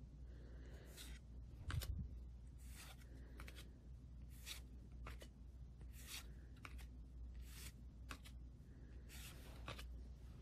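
Hockey trading cards being slid one at a time from the front of a hand-held stack to the back, a soft card-on-card swish roughly every second and a half. A sharper tap about two seconds in.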